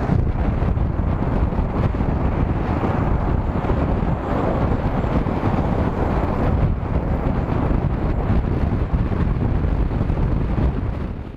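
Steady wind noise on the microphone of a camera mounted on a moving pickup at highway speed, mixed with road and driving noise. It fades away at the very end.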